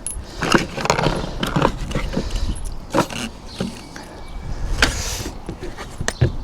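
Irregular knocks, clicks and scuffs of screws being started by hand into solar panel mounting brackets on a van's metal roof.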